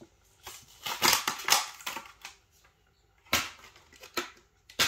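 Short handling noises, crackly and clattering, as small diecast model cars are picked up and set down on a glass mirror display: a cluster about a second in, then three single knocks later.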